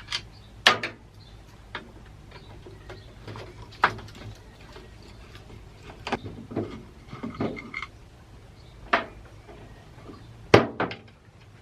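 Scattered clicks, knocks and clinks of metal chainsaw parts being handled and worked by hand, about ten in all, with the loudest knock near the end and a brief squeak a little past the middle.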